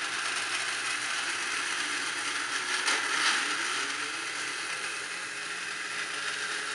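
Lionel #3360 Burro Crane's small electric motor and gearing running with a steady gear whir. About three seconds in there is a sharp click, followed by a brief rising whine.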